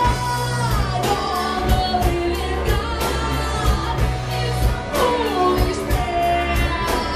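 Live band music: a gliding lead melody line over steady bass and regular drum hits.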